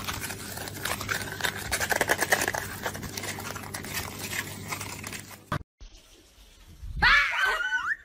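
Toilet paper rustling and tearing as a small rodent shreds it, a dense run of crinkly ticks for about five and a half seconds. After a short gap, a brief high sound that wavers up and down in pitch near the end.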